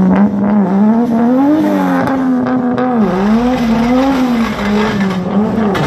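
Sedan's engine held at high revs while the car drifts on a wet track, its pitch dipping and rising again and again with the throttle.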